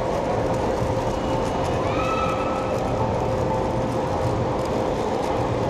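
Rapid clicking and rattling of a 5x5 speedcube being turned fast, over a steady background din of a crowded hall.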